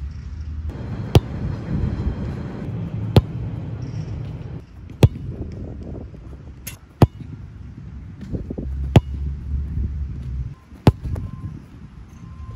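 Soccer ball struck hard with the foot six times, about every two seconds, each kick a sharp thud, over a low outdoor rumble.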